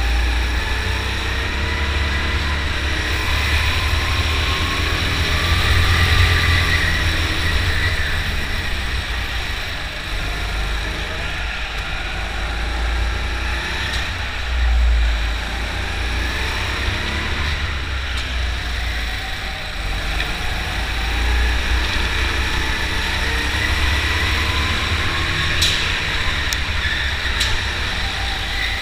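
Indoor rental go-kart being driven hard on a lap, its motor rising and falling in pitch as it accelerates out of corners and slows into them, over a heavy low rumble on the onboard camera. A few sharp knocks come near the end.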